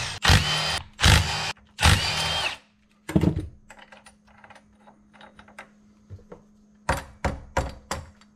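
Cordless impact gun running the cylinder head bolts out of a Briggs & Stratton Vanguard V-twin, in three short bursts in the first couple of seconds, the last with a rising whine. A clunk and small clinks follow as the bolts come out, and near the end come about five sharp mallet taps on the cylinder head to break it loose.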